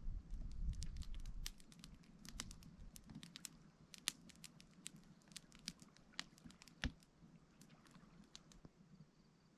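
Scattered raindrops pattering on a tent as the first rain begins: irregular sharp ticks, several a second, thinning out toward the end, with a low rumble in the first second or so.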